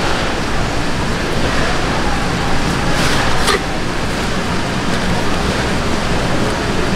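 Steady, loud background hiss and rumble of a fish-market stall, with a brief papery rustle about three seconds in as a paper towel is handled.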